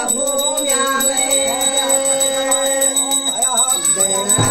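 A small hand bell ringing rapidly and steadily over music with long held notes that bend in pitch near the end.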